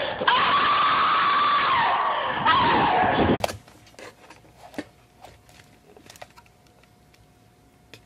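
A long, high scream, held and then falling in pitch, cut off suddenly about three and a half seconds in. After it, a quiet room with a few faint clicks and a faint steady hum.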